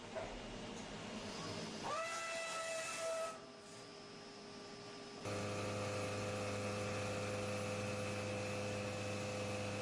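CNC milling machine's spindle and milling cutter: a whine rises quickly to a steady pitch about two seconds in and stops a second or so later; from about five seconds in comes a steady, multi-toned machine hum with hiss as the cutter mills the metal part.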